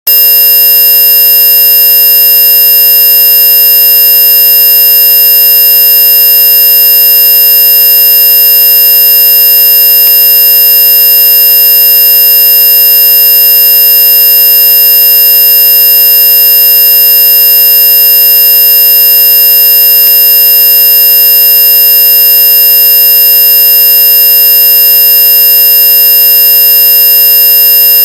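Electronic hearing-test tones: several steady pure tones sounding together without any change, from a lower tone up to a very high-pitched one. Loud throughout.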